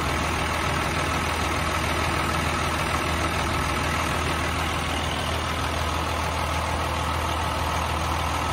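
Diesel engine of a 2011 Freightliner M2-112V truck idling steadily, heard close up in the open engine bay.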